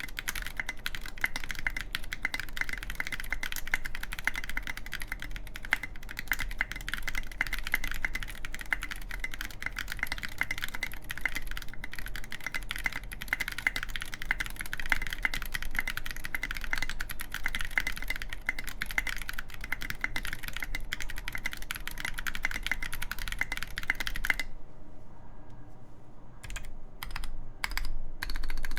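Fast, continuous typing on a mechanical keyboard with lubed Zealio v2 tactile switches, a full aluminium plate and SA-profile keycaps. About 24 seconds in, the stream of keystrokes breaks off into a few separate key presses with pauses between them.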